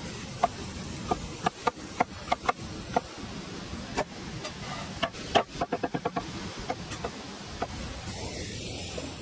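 A series of irregular sharp knocks with a slight ring, including a quick run of about eight knocks a second near the middle, over a steady hiss.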